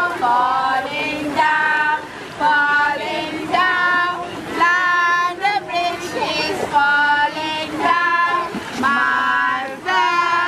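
A child singing a song in a high voice, in short phrases of held notes.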